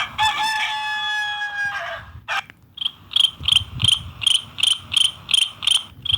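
Kingsun F33 mobile phone playing alert tones through its small speaker. First comes the mail-message chime, a few held notes lasting about two seconds. After a click, a chirping tone repeats about three times a second.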